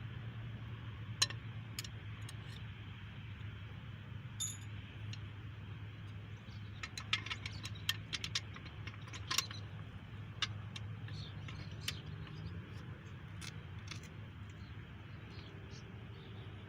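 Light hammer taps on a camshaft bearing removal tool, driving a cam bearing out of a small-block Chevy 350 block a little at a time: scattered metallic clinks, with a quick run of them about seven to nine seconds in, over a steady low hum.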